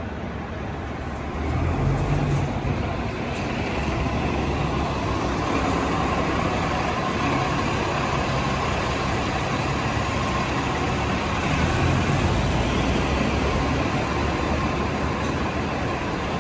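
Double-decker bus driving past at low speed and pulling away. Its engine runs steadily, growing louder about a second and a half in, with a faint steady whine.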